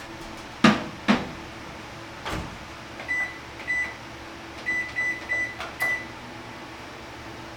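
Microwave oven: two loud clacks and a lighter knock from its door, then six short high beeps from its keypad as the settings are entered, over a faint steady low hum.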